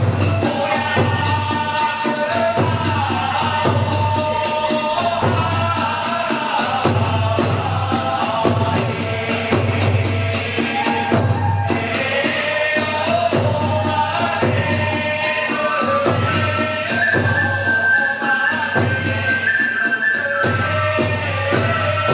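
Kagura hayashi music: a large drum beats a steady rhythm under fast, continuous clashing of small hand cymbals, and a bamboo flute holds a high note near the end.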